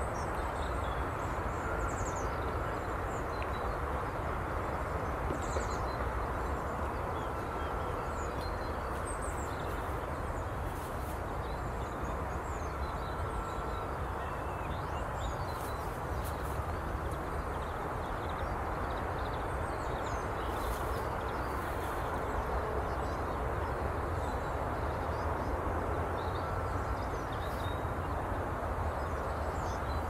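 Steady outdoor background noise with a low rumble, with faint small-bird chirps scattered through it. A short, steady higher note repeats every five or six seconds.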